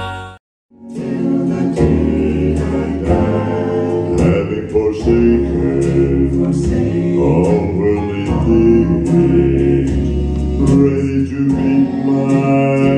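Male gospel quartet singing in close harmony, with a bass voice holding very low chest notes beneath the other three. The sound drops out briefly at the start at an edit cut.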